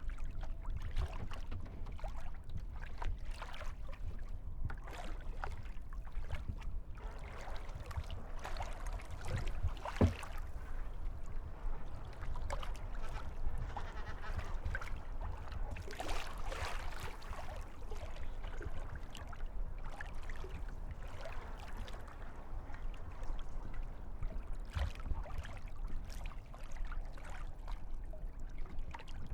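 Kayak paddling: irregular splashes of the paddle and water lapping against the kayak's hull, with one sharper knock about ten seconds in.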